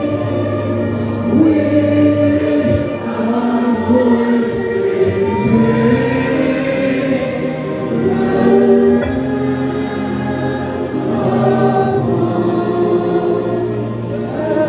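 A congregation singing a gospel worship song together over steady, held low notes.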